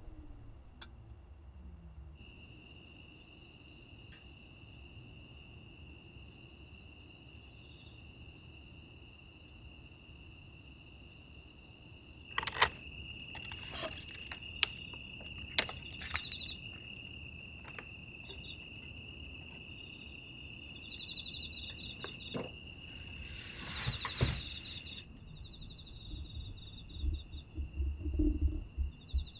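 Crickets singing on an autumn night: a steady high trill at two pitches with a pulsed chirping over it, starting about two seconds in. A few sharp clicks, a brief rustle about two-thirds of the way through, and some low knocks near the end sound over the insects.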